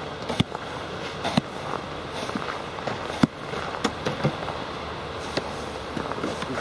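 Boots crunching on hard-frozen snow in sharp, irregular clicks, over the steady noise of a car pulling away through the snow.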